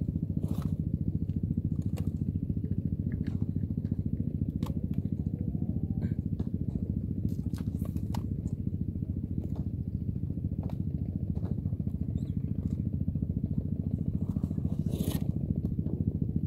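A steady engine drone, likely a motor running nearby, with scattered clicks and rustles from handling gear, the loudest near the end.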